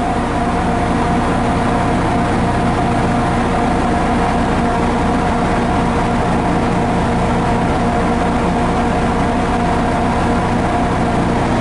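MARC commuter train standing at the platform with its diesel locomotive idling: a steady low engine drone with a constant high whine over it.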